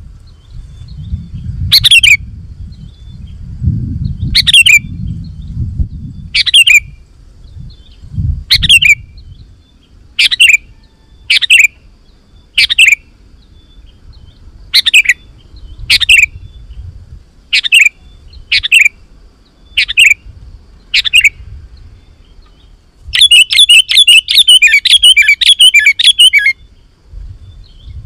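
Sooty-headed bulbul (kutilang) calling: a short, sharp, falling call repeated about once a second, then a fast chattering run of notes near the end.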